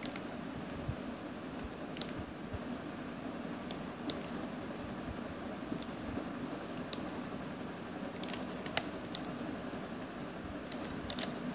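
Computer mouse left-button clicks, sharp and short, about a dozen scattered irregularly over several seconds, over a steady low room hiss.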